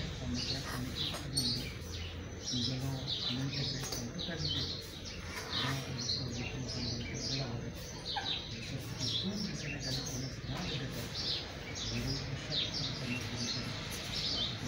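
Many small birds chirping continuously in quick, short, falling notes, with low voices murmuring underneath.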